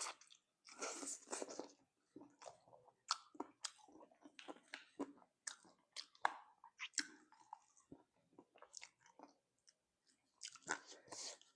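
Close-miked mouth sounds of someone eating spicy chicken feet: irregular biting and chewing, with wet smacks and small crunches from the skin and cartilage.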